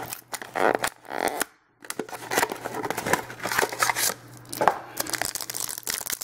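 Foil wrapper of an Absolute Football trading-card pack crinkling and tearing as it is opened, with a brief pause about a second and a half in.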